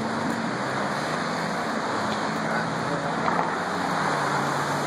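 City street traffic: a steady hum of car engines and tyres, with a low engine drone running under it.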